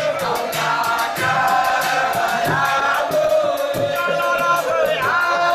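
Moulidi, an Islamic devotional song, sung as a chant with long held, gliding notes over a steady percussion beat.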